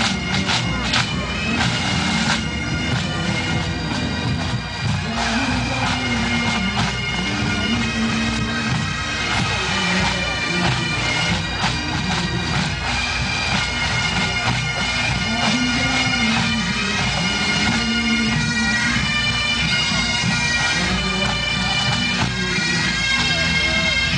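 Massed pipe bands playing great Highland bagpipes: steady drones under the chanter melody. Drum strokes sound in the first couple of seconds.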